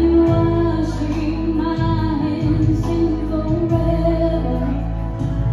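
A woman singing a song into a microphone through a PA, over an instrumental accompaniment with a steady bass line.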